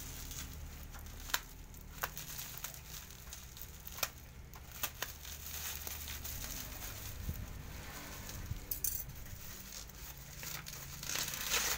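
Plastic bubble wrap crinkling and rustling as a wrapped package is slit open with a small knife and handled. Several sharp clicks come through it, and there is a louder burst of crinkling near the end.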